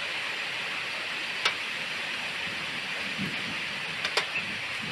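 Steady hiss of falling rain, with two sharp ticks, about a second and a half in and near the end.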